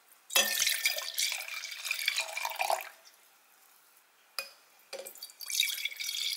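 Rain pattering and dripping, in two stretches with a quiet pause and a single click between them.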